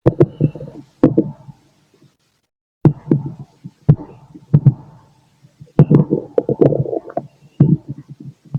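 Stomach and intestinal gurgling heard through a stethoscope, in irregular bursts with sharp clicks among them: bowel sounds of digestion.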